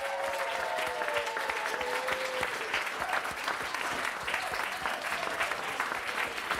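Restaurant diners applauding: many people clapping steadily, with a pitched sound over the clapping for the first couple of seconds.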